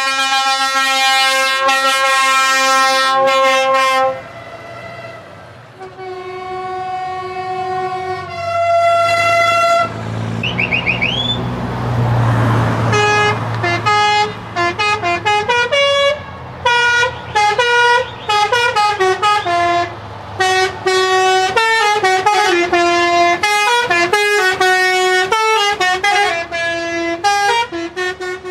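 Truck air horns: two long chord blasts, then a rush of engine noise, then a multi-note musical horn playing a fast tune for the second half.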